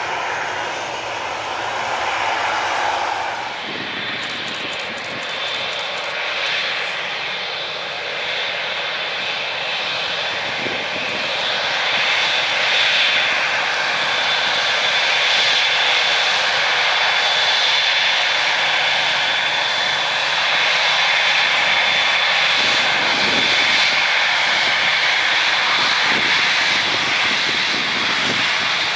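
A departing twin-engine jet airliner's roar fading as it climbs away. A few seconds in, after a cut, a TUI Boeing 787-8 Dreamliner's jet engines run as it turns onto the runway, with a steady high whine over the roar that grows louder in the second half.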